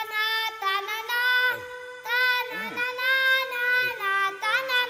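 A song playing: a high voice sings long, gliding phrases over held instrumental notes.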